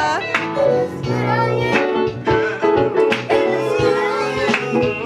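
Song music with a steady beat, with girls' voices singing along.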